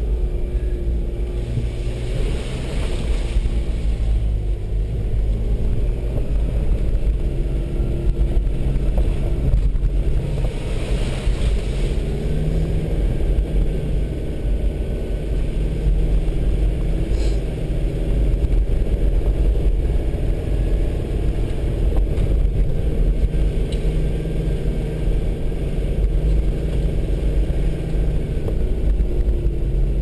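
Off-road vehicle's engine running under load as it is driven over a muddy, rutted dirt track, heard from inside the cabin; the engine pitch rises and falls as the driver works the throttle, over a steady low rumble from the tyres and body.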